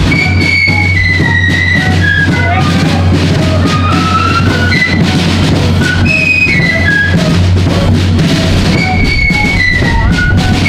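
Marching flute band playing a tune: flutes carry the melody over a steady drum beat.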